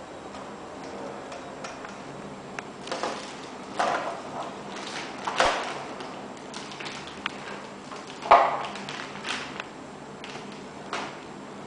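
Unpacking handling noise: parts and plastic packaging set down and moved on a tile floor, giving a string of separate knocks, taps and crinkles. The loudest comes a little past the middle.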